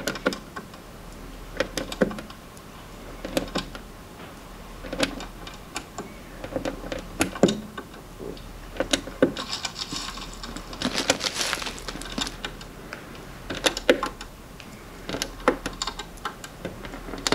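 Round plastic LEGO Art 1x1 dot tiles being pressed onto the studs of a baseplate, close-miked: a string of small, sharp plastic clicks and taps at an uneven pace, with a busier stretch of clicking and clattering around the middle.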